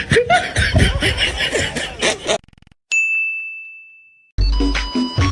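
A single bright ding, a transition sound effect, rings out about three seconds in and fades away over about a second and a half. Before it there is a busy mix of voice and music, and near the end an electronic music track with a steady beat starts.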